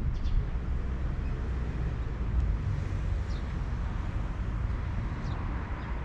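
Steady low rumble of a vehicle running, with a few faint, short, high chirps over it.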